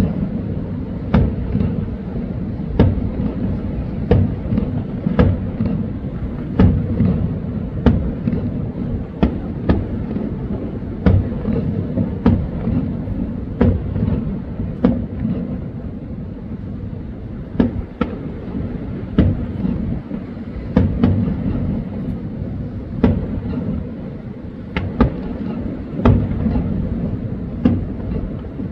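Aerial fireworks shells bursting: a rapid, irregular run of booms, roughly one a second, over a continuous low rumble.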